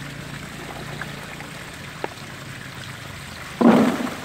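Water trickling and sloshing as a hand works in a plastic bucket of water set in shallow muddy water, with two small knocks and a short, loud splash about three and a half seconds in.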